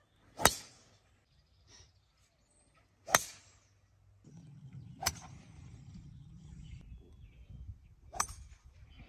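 Four golf shots in a row, each a sharp crack of the club face striking the ball: the first two are driver tee shots and the loudest, and the last is an iron shot. A low steady rumble of wind comes in from about four seconds in.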